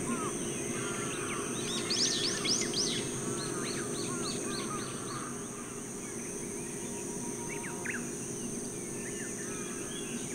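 Several birds singing and calling at dawn: a burst of quick sweeping notes about two seconds in, then a run of evenly repeated notes, with scattered chirps later. Under them runs a steady high insect drone.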